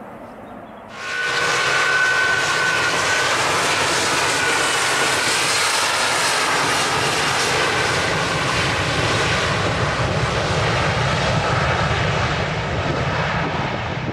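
Jet airliner's engines at high thrust on a takeoff run: a loud, steady roar with a whining fan tone. It comes in suddenly about a second in and eases slightly near the end.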